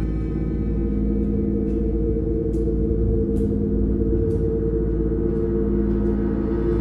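Ambient soundtrack music: a sustained, gong-like drone of several steady low tones that hold without fading. A few faint ticks come through in the middle.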